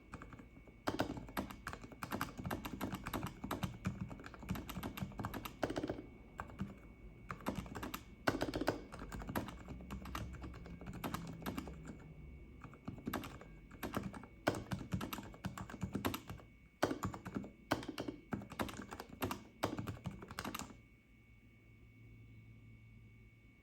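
Typing on a Vortex Pok3r mechanical keyboard with lubed Cherry MX Silent Red switches, damped by tape, paper towel and PE foam mods: quick runs of soft keystrokes with short pauses. The typing stops about 21 seconds in.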